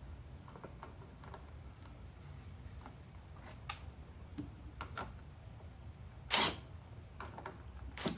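Scattered light clicks of small metal parts and hand tools being handled while a mower carburetor is bolted back on, with one louder clack about six seconds in.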